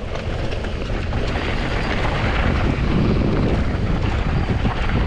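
Wind buffeting an action camera's microphone while a Commencal Supreme DH downhill mountain bike rolls fast down a dirt trail. A steady rush of tyre and wind noise, with faint scattered rattles from the bike.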